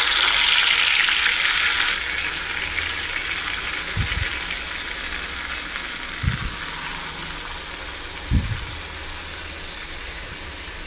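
Marinated prawns sizzling in hot ghee in a pan, loudest as they go in and slowly settling as the pan cools. Three short low thumps come along the way.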